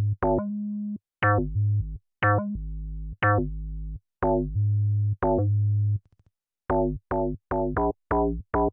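Siberia 2 FM synthesizer playing its 'BS - Hard Bass' preset: a run of short, deep bass notes, each starting bright and quickly darkening. The notes come about once a second, then after a short break about six seconds in they come faster, about three a second.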